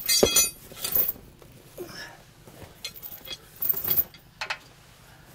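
Steel tow chain clinking and clanking as it is handled and hooked under a truck's front bumper. A bright metallic jingle at the start is loudest, followed by a few scattered clanks.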